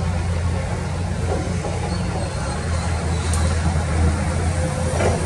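Diesel engines of Komatsu PC210 hydraulic crawler excavators running steadily under load while digging wet clay, a low drone with a light click about three seconds in and a short scrape near the end.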